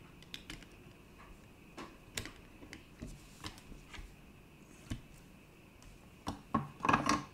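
Scattered light clicks and taps of circuit boards being handled and set against a plastic solderless breadboard. Near the end comes a louder, denser clatter lasting about a second.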